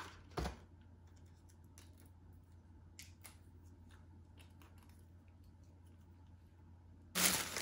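Quiet handling sounds: a sharp knock about half a second in, then a few faint clicks over a low steady hum. Near the end, loud crinkling of a bouquet's paper wrapping starts suddenly.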